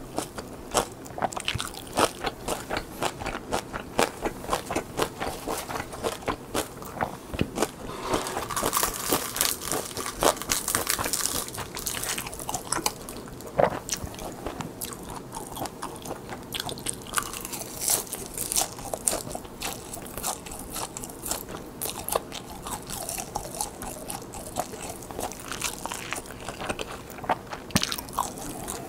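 Close-miked crunching and chewing of crisp seasoned laver (gim) sheets, a dense run of sharp crackles from bite after bite.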